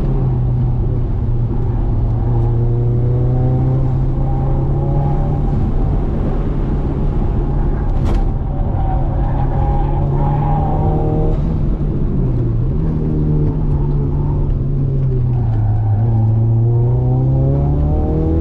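Ford Laser TX3's turbocharged four-cylinder engine under acceleration, its revs climbing in long pulls. The pitch drops off a little past halfway, rises briefly, then climbs again in the last few seconds, like shifts through the gears.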